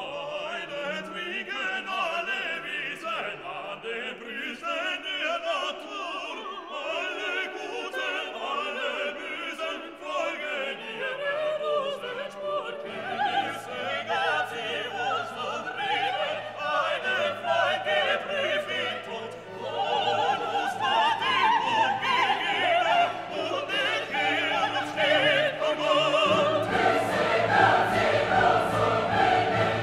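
Background music: classical-style singing with orchestra. It grows fuller and louder in the last few seconds, as deep low notes come in.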